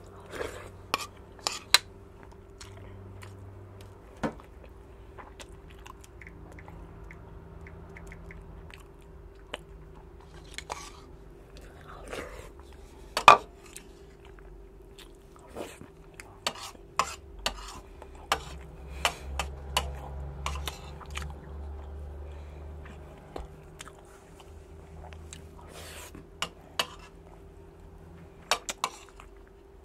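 A person chewing a mouthful of salmon larb and rice, with a spoon clinking against a ceramic bowl and plate every few seconds; the sharpest clink comes about 13 seconds in. A faint steady hum runs underneath.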